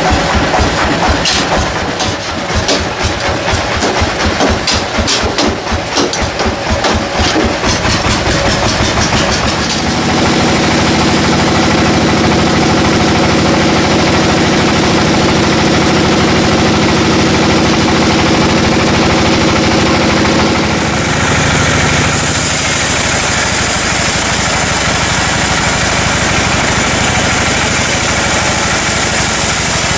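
Sawmill engine running, pulsing unevenly for the first third, then settling into a steady hum; a high whine joins about two-thirds of the way through.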